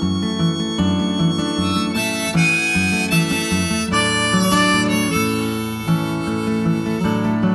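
Harmonica played from a neck rack, carrying the melody over strummed acoustic guitar chords in a live folk instrumental break.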